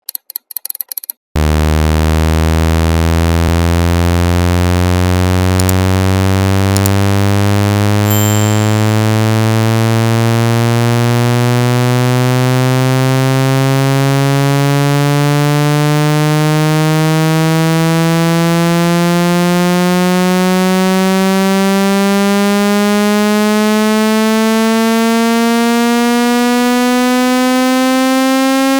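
Speaker-cleaning test tone: a loud, buzzy synthesized tone full of overtones that starts about a second in and glides slowly and steadily upward in pitch. A few short ticks come just before it.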